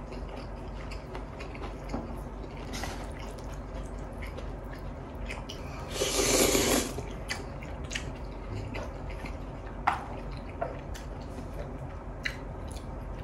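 Mouth sounds of eating a spicy chicken and noodle stir-fry: quiet chewing and wet smacking, with one loud slurp of noodles about six seconds in lasting about a second, and a few sharp clicks later.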